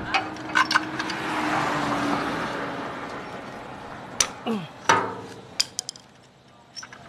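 Metal tool clicks and taps as a screwdriver works at the spark plug on a gasoline generator's engine, scattered at irregular moments with a small cluster about five and a half seconds in. A rushing background noise swells and fades about one to three seconds in.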